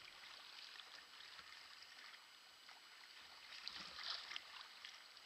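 Faint splashing and fizzing of choppy sea water around a sea kayak, with a few sharper splashes about four seconds in.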